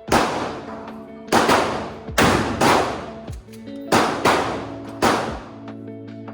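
A string of about eight gunshots at irregular intervals, each with a sharp crack and a short decaying echo, over background music.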